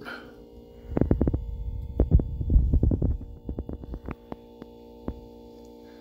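Refrigerator compressor running with a steady hum as it charges the air tank of a pneumatic can crusher. Over the first half, a series of irregular clicks and knocks sound over the hum, louder than it.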